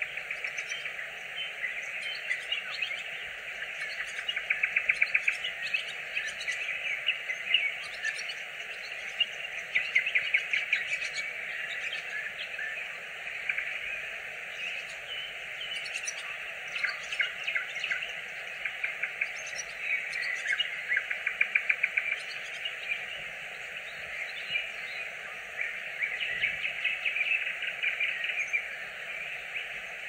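Nightingale singing: phrases of rapid repeated notes and trills, each a second or two long, with short pauses between them.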